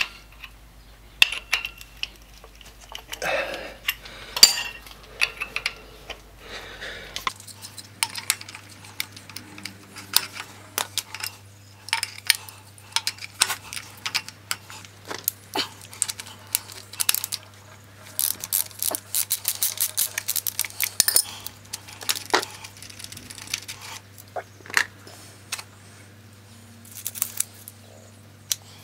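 Metal hand tools clinking and tapping: hex bit sockets rattling together and a socket on the nut and bolts of a Yamaha XS850's ignition plate as it is undone and lifted off. Many short, sharp clicks, with a dense run of rattling about two-thirds of the way through.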